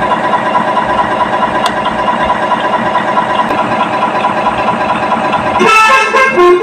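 RC monster truck engine-sound module playing a simulated truck engine idling, a steady looping engine sound. Near the end it switches to a basuri horn, a tune played in several musical horn notes.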